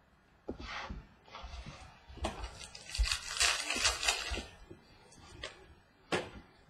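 Trading cards and a foil card pack being handled: several bursts of crinkling, tearing and rustling, loudest through the middle, and a short sharp snap near the end.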